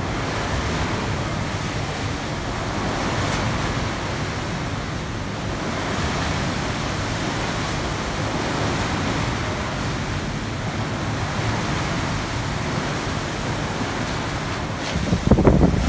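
Pool water sloshing and churning in a netted-over shipboard swimming pool as the ship rolls, a steady rushing wash that swells and eases, with louder, uneven surges near the end.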